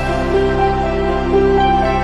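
Soft background music: sustained chords with a slow melody of held notes.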